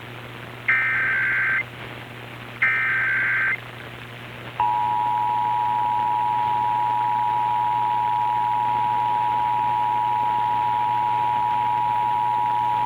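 Emergency Alert System broadcast tones: the last two of the three screeching SAME digital header bursts, each about a second long with a second's gap. About four and a half seconds in comes the steady, harsh two-tone EAS attention signal, which holds to the end.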